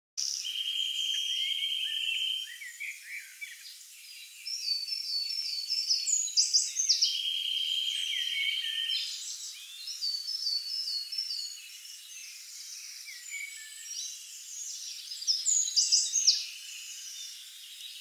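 Several songbirds singing: a long, even trill heard twice, between runs of quick repeated high notes and short whistled phrases.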